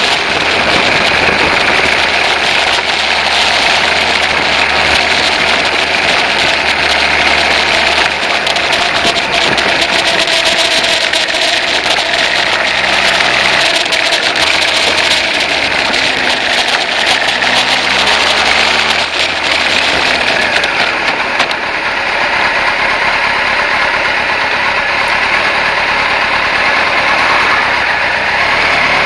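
Kawasaki ZZ-R1100's inline-four engine running as the bike is ridden along, its note shifting pitch several times, under a steady rush of wind on the bike-mounted microphone.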